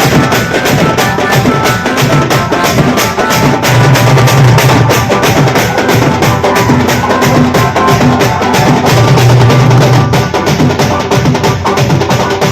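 Village wedding band party playing loud, fast, drum-heavy music: dense drum strokes with a held melody line over them.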